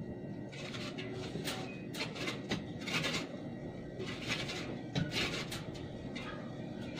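Light, irregular clicks and rustles of hands handling wooden popsicle sticks and a hot glue gun.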